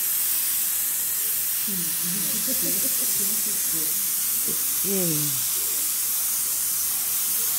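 Steady hiss of compressed air from a gravity-feed spray gun spraying colour onto kimono fabric.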